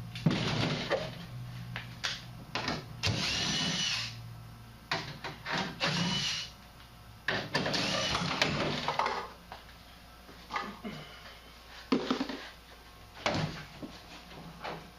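Handheld power drill running in a series of short bursts of about a second each, with a high whine, drilling into the furnace's sheet-metal side with a step bit.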